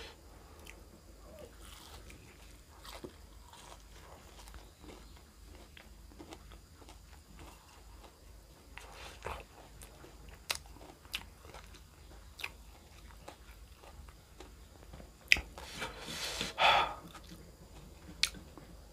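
A person biting and chewing crunchy food close to the microphone, scattered crisp crunches with a louder run of bites near the end.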